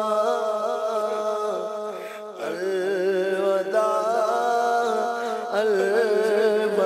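A male voice chanting a slow, devotional farewell lament for Ramadan in long, wavering held notes, with a brief pause about two seconds in.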